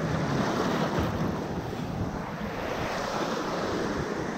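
Ocean surf surging and washing over a rocky shore ledge: a steady rushing of breaking white water that eases a little about halfway through and builds again near the end.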